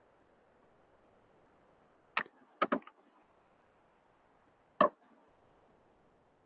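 Sharp clicks over faint hiss: one about two seconds in, a quick pair half a second later, and a single click near the five-second mark.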